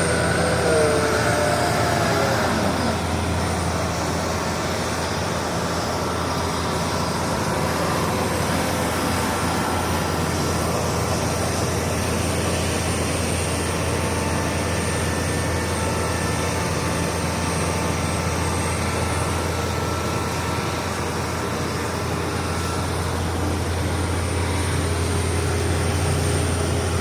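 Kubota DC-75 combine harvester's diesel engine running steadily, a continuous low drone with a faint high whine over it.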